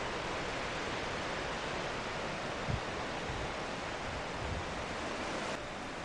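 Steady outdoor hiss of wind, with a few brief low bumps, the sharpest about halfway through; the hiss drops abruptly to a quieter level near the end.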